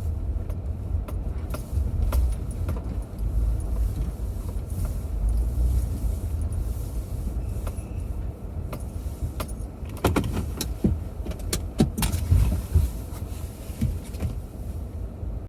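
A car driving, with a steady low rumble. A few sharp clicks and rattles come about ten to twelve seconds in.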